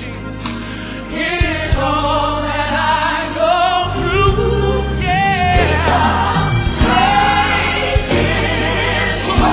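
Live gospel music: voices singing with vibrato, with a choir, over a band's bass notes and occasional drum hits.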